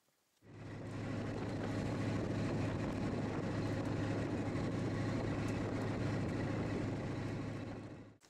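Small motorboat under way: the engine runs with a steady low hum under a rush of wind and water. It cuts in suddenly about half a second in and fades out near the end.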